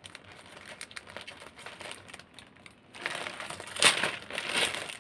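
Plastic poly mailer bag crinkling as hands pick at it and pull it open. It is faint at first and gets louder from about three seconds in.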